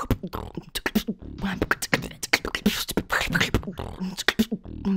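A woman beatboxing into a microphone: a fast, dense stream of mouth-made drum sounds, with low thumps, sharp clicks and hissing bursts in a steady groove.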